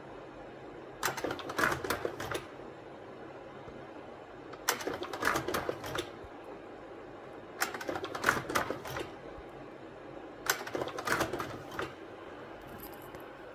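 Agfa Reflecta AF 1800 slide projector's slide changer cycling four times, about every three seconds: each change is a burst of rapid mechanical clicking and clattering lasting about a second and a half, over a steady low hum.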